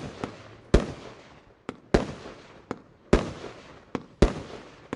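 Evolution Fireworks 'Limited Edition 3', a 75-shot compound firework cake, firing: a loud bang about every second, each trailing off, with smaller sharp pops in between.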